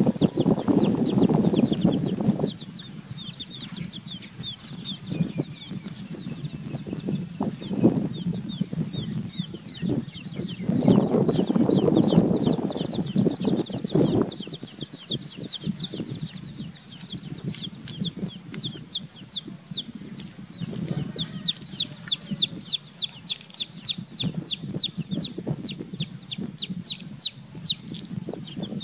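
Domestic chicks peeping: many rapid, high, falling cheeps, coming thicker in the second half. Two louder stretches of low noise come under them, one at the start and one around the middle.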